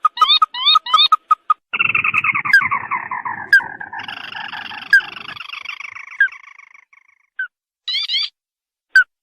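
Crake calls used as a trapping lure: quick runs of short rising nasal notes, then a long chattering trill that falls slowly in pitch over about five seconds, followed by a few single notes.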